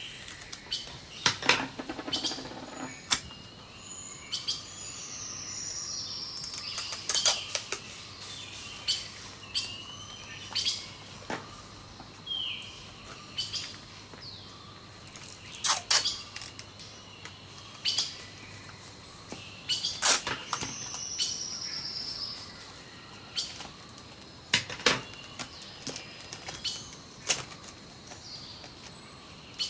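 Birds chirping and calling in short, repeated phrases, with scattered sharp clicks and crackles throughout from transparent tape and paper being handled.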